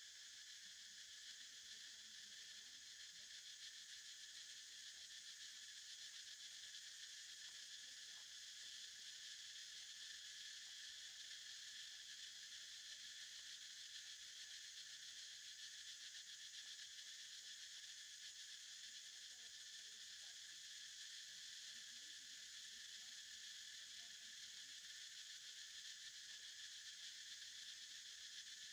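Faint, steady chorus of insects in the trees: a continuous high drone in several layered pitches.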